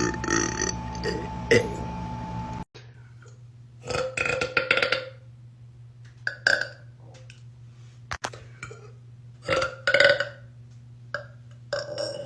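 A woman burping loudly again and again: a quick cluster of burps, then about five separate burps with short pauses between them.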